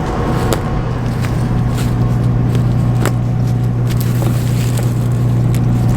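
Claas Lexion 740 combine harvesting soybeans, heard inside the cab: a loud, steady low drone with scattered clicks and ticks over it.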